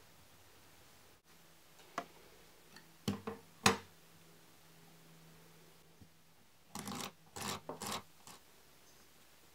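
Wooden skewers handled on a wooden workbench: a few sharp clicks and clacks as they are tapped and laid down, then a second or so of rattling and rubbing as a hand pushes and rolls the bundle into line.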